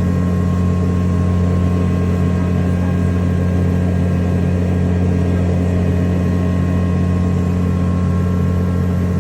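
Amphibious duck tour vehicle's engine running steadily, a constant low drone.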